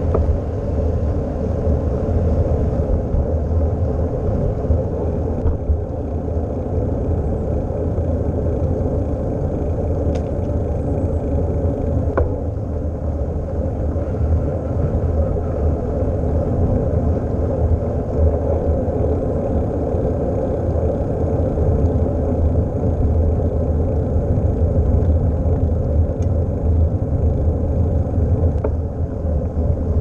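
Wind buffeting a bicycle-mounted action camera's microphone while riding, a steady low rumble with road noise underneath.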